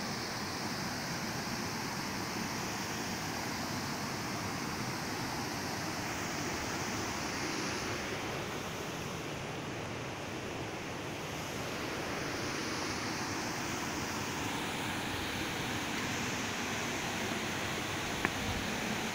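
Steady rush of river water flowing over stepped rock ledges, with one brief click near the end.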